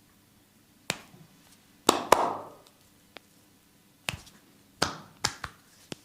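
A massager's hands striking and snapping in a massage: about eight sharp slaps and snaps at irregular intervals. The loudest is a quick pair about two seconds in.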